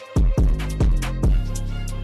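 Background music with a heavy kick drum and held bass notes, the kick hitting several times in an uneven rhythm.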